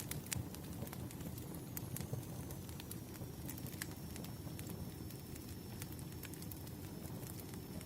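Firewood burning: a steady low rumble of flames with sharp crackles and pops at irregular intervals, and a faint thin high whistle through most of it.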